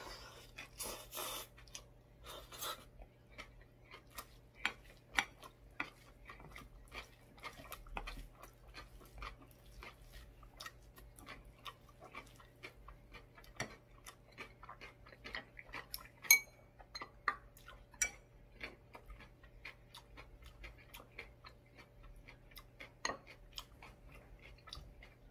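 Close-miked eating: a spoon clinking and scraping in a ceramic bowl of soybean-sprout rice, chopsticks on crunchy radish salad, and chewing, as many small irregular clicks and ticks.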